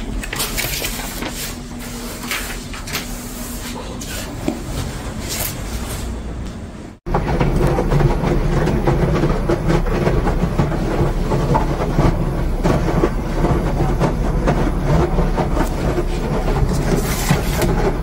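Front-loading washer-dryer running mid-cycle: a steady mechanical rumble with churning, which starts abruptly about seven seconds in. Before it there are quieter room sounds with a few handling clicks.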